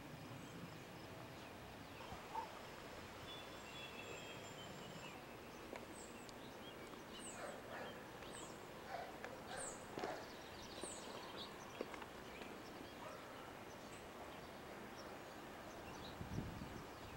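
Faint outdoor background noise with birds calling: short, falling high-pitched chirps, repeated about once a second through the middle. There is a brief low bump near the end.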